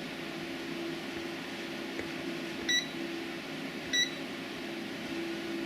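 Two short, high electronic beeps about a second and a half apart from a Venlab VM-600A digital multimeter, sounding as its function selector is stepped between ranges.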